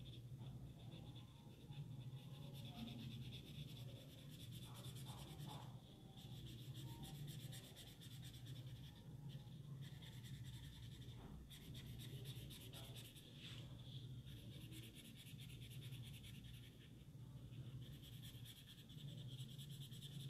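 Faint scratching of a green crayon on paper as it shades in, in rapid fine strokes over a steady low hum.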